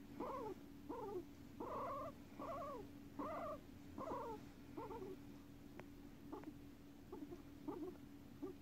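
Guinea pig giving a run of short rising-and-falling calls, about two a second, which grow softer after about five seconds and give way to faint chirps.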